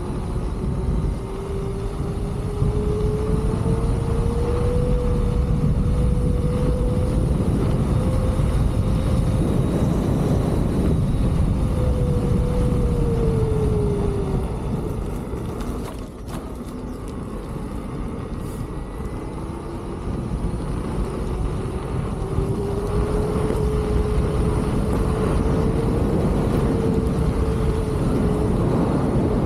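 Wind rushing over the microphone while riding a Leaperkim Lynx electric unicycle, with the hub motor's whine rising in pitch as it speeds up and falling as it slows. The whine drops away about halfway through, when the wind also eases, then climbs again.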